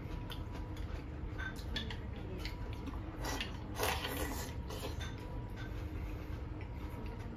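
A person eating: small scattered clicks of chopsticks against a bowl, and a slurp of soup sipped from the bowl from about three to four and a half seconds in.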